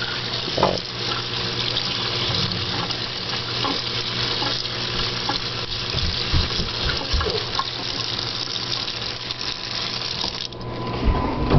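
Fresh tap water running from a sink faucet and splashing over a live rock held in the stream, a fresh-water rinse to keep green hair algae from regrowing. The splashing thins out about ten and a half seconds in and is followed by a few low knocks.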